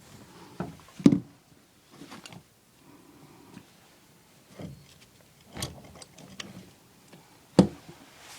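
Sharp knocks and small clicks of plumbing parts being handled and worked on. The loudest knocks come about a second in and near the end.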